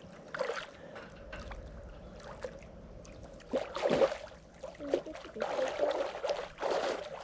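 Lake water splashing and sloshing in irregular bursts, loudest about four seconds in and again near the end.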